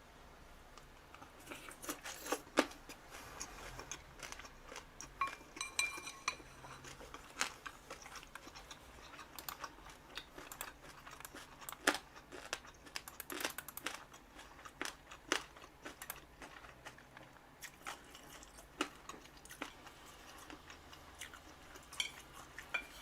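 Close-miked eating sounds: irregular crunchy chewing and biting, with a few louder crackles.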